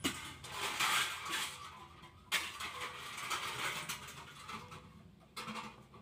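Scraping and rustling of hands working wires and a small screw into the plastic head of an electric immersion water heater, in rough spells that start suddenly at the start, a little after two seconds and again near the end.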